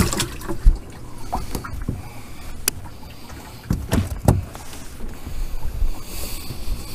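Scattered knocks and clicks of fishing rods and gear being handled in a fishing boat, with a sharp click a little over two and a half seconds in and two thumps around four seconds in. A short hiss comes near the end.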